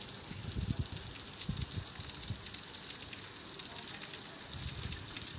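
Steady crackling hiss of falling rain, dense with small patters. A few dull low thuds sound in the first half and again near the end.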